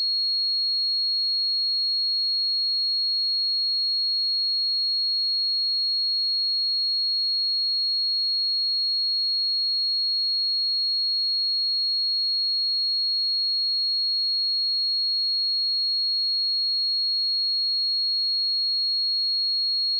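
A steady, unbroken 4301 Hz sine-wave test tone: a single pure high-pitched tone at constant pitch and level, used for testing speakers and headphones.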